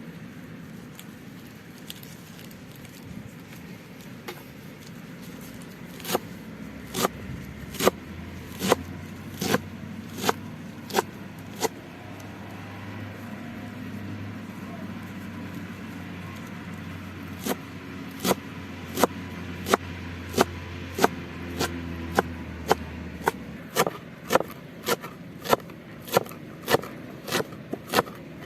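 A knife chopping on a cutting board in steady strokes, about one and a half a second, in two runs with a pause between. A low steady drone, like a distant engine, runs under the middle part.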